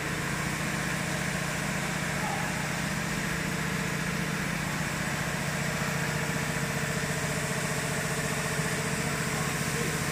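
Glue-spraying composite machine for non-woven cotton running steadily: a constant machine hum with a steady hiss and no breaks.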